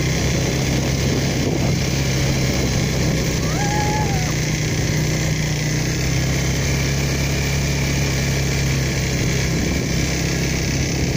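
ATV engine running at a steady pace while being ridden, a constant low drone. A brief high pitched sound rises and falls about three and a half seconds in.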